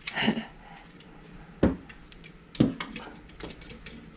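Small plastic clicks and knocks as a preloaded Panduit Mini-Com jack module is handled and pushed into a faceplate from behind, with two sharper knocks, one about a second and a half in and another a second later.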